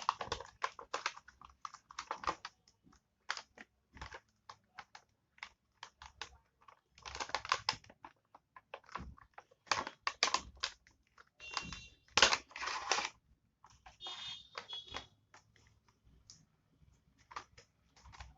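A cardboard box and its packaging being opened and handled: a rapid string of small clicks and scrapes, with longer rustling bursts about seven seconds in and again around twelve to thirteen seconds.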